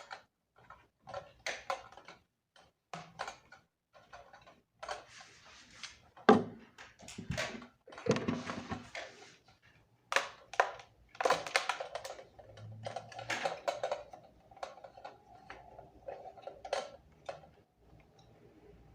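Irregular clicks, knocks and scraping as a ring light is fitted and secured onto its stand, with the loudest knock about six seconds in.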